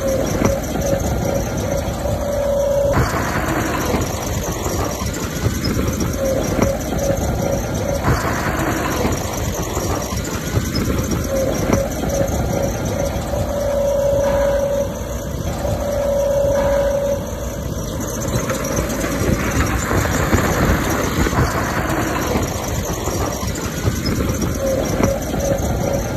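Diesel engine of earthmoving machinery running steadily, with a squealing tone that comes and goes, at times in quick pulses, and a few short rushes of louder noise.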